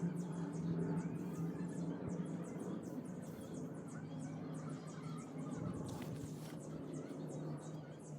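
Rapid high-pitched chirping, about four chirps a second, over a steady low hum, with a short rushing noise about six seconds in.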